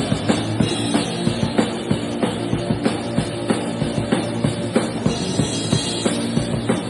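Band playing rock music at a sound check: a drum kit keeps a steady beat, about three hits a second, over held bass notes.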